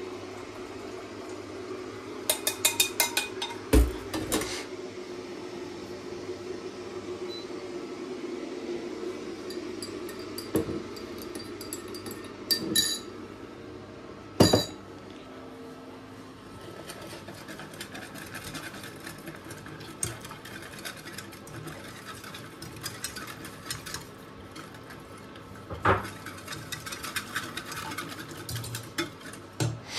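Kitchen clatter: glass and metal clinking, with a few sharp knocks in the first half, then a wire whisk rattling against the inside of a metal saucepan in quick strokes. A steady low hum runs underneath.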